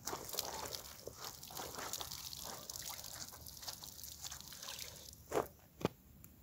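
Water streaming and dripping from a wet cloth lifted out of a plastic bucket of wash water, then two short splashes a little after five seconds as the cloth is pushed back into the bucket.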